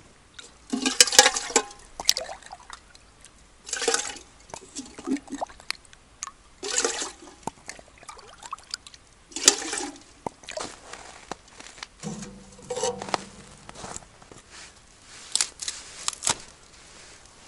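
Water being scooped and poured at a hole in lake ice: short, irregular splashing and gushing bursts every few seconds.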